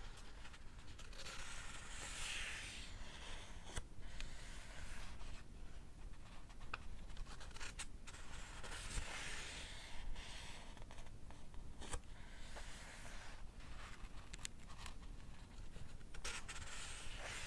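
Pages of a paperback book being turned one after another, each turn a soft papery swish, with small ticks of paper between them.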